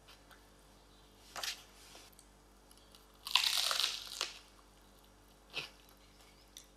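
A person biting into and chewing a crunchy open sandwich topped with cucumber slices, giving a few short crisp crunches. The loudest lasts about a second, around the middle.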